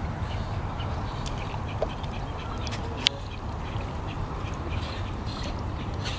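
Ducks quacking over a steady low rumble, with a single sharp click about three seconds in.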